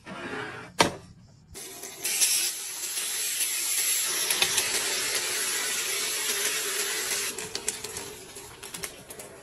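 Marinated chicken wings frying in hot oil in a pan: after a single sharp click, a loud steady sizzle starts about a second and a half in. Near the end it dies down to scattered crackles.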